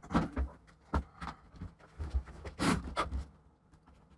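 Irregular small clicks and knocks of hands handling a laptop as a power cable is plugged in, about seven or eight sharp taps over a few seconds.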